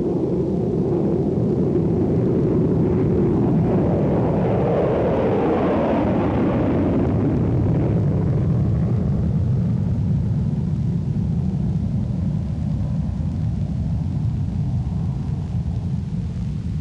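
Lockheed SR-71A Blackbird's Pratt & Whitney J58 jet engines at takeoff power in afterburner, through the takeoff run and climb-out: a loud jet rumble with a tone that sweeps and falls about five seconds in, then a steadier low rumble that slowly fades as the aircraft climbs away.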